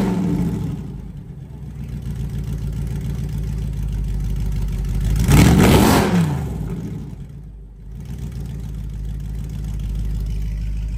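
Audi R8's 4.2-litre V8 breathing through an AWE Track exhaust, running on a cold engine. It idles and is blipped once about halfway through, the revs climbing and then falling back to idle. As it begins it is just settling from an earlier blip.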